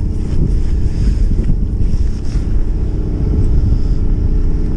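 Strong wind buffeting the microphone on a small boat at sea, a loud steady rumble, with a fishing boat's engine running underneath.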